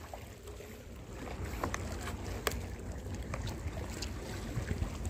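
Wind rumbling on the microphone over sea waves washing against rocks, with a few faint clicks.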